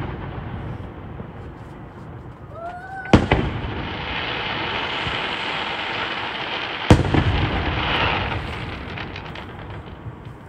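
Aerial fireworks shells bursting: two sharp booms about four seconds apart, each followed by a lingering echo, with a steady hiss between them as the bursts fade.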